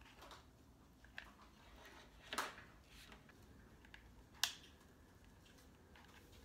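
Quiet crafting handling sounds: light rustling of stiff artificial grass stems and a few small ticks as the grass is hot-glued into moss, with two sharper clicks about two and a half and four and a half seconds in, the second the loudest.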